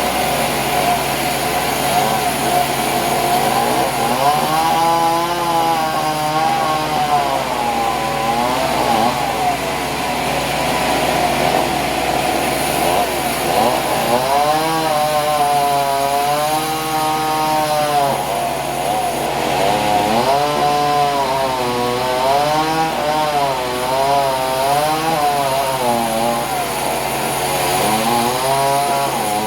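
Gasoline-powered saw cutting wood; the engine pitch rises and falls in slow waves as the blade loads up and frees in the cut.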